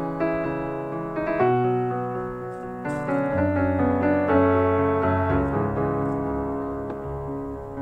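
Background piano music, slow sustained notes and chords.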